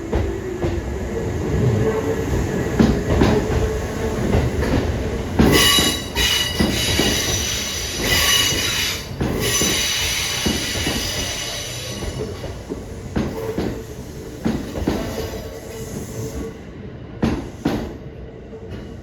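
Kintetsu 8000 series electric train running on the rails, its wheels clacking over rail joints again and again. A high wheel squeal sounds over the clacking from about five to twelve seconds in.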